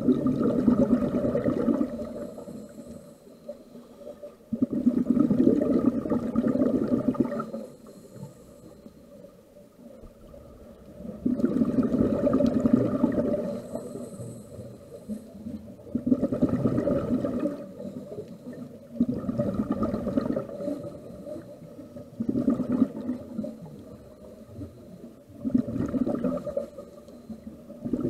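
Scuba regulator exhaust bubbles from the filming diver's breathing underwater: a loud rumbling gurgle of about two to three seconds comes every few seconds, about seven times, with a soft hissing inhale through the regulator in the quieter gaps between.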